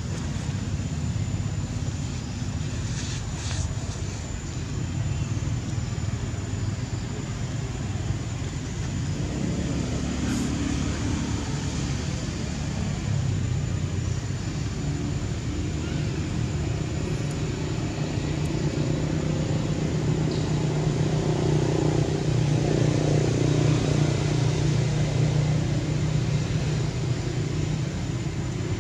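A steady low rumble, louder for several seconds about two-thirds of the way through.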